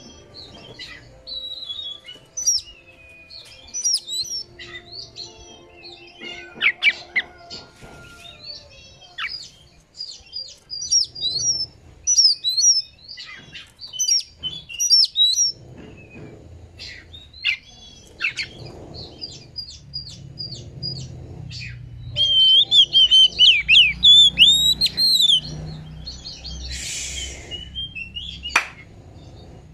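Oriental magpie-robin singing: a varied string of short whistled notes, slurs and trills, with a loud, rapid run of notes about two-thirds of the way in and a short harsh rasp near the end.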